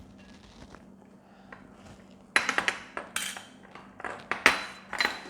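Eating utensils clinking and scraping against a bowl. A run of sharp clatters and short rings begins a little over two seconds in.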